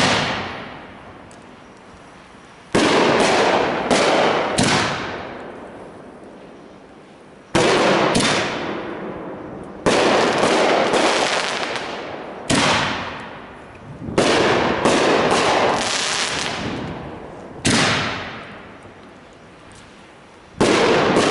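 Triple-break aerial canister shells being fired and bursting: about a dozen sharp bangs, irregularly spaced and sometimes in quick runs of two or three, each trailing off over a second or two.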